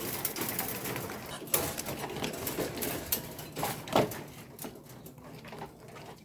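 Village chickens in a small coop making low clucking calls, with scattered clicks and a couple of sharper knocks, about one and a half and four seconds in.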